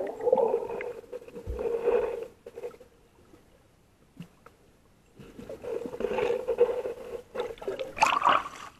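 Muffled underwater sound of water gurgling and bubbling around a submerged camera, with a steady low hum. It comes in two stretches with a near-quiet gap between them, and ends with a louder rush of water near the end.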